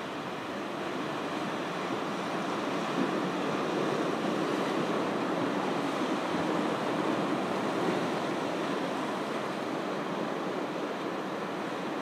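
Ocean surf washing onto the beach: a steady rushing hiss that swells over a few seconds and then eases again.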